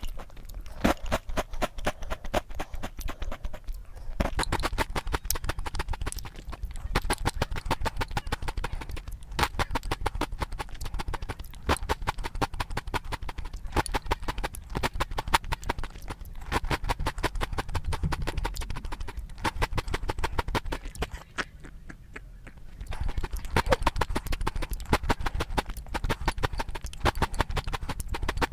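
Close-miked chewing of Oreo O's chocolate cereal softened in milk: a dense, continuous run of crunches and wet clicks, easing off briefly near the end.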